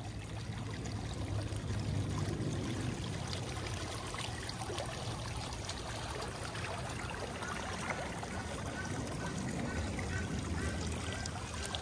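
Shallow stream flowing quickly over its earth bed, a steady rushing and trickling of water.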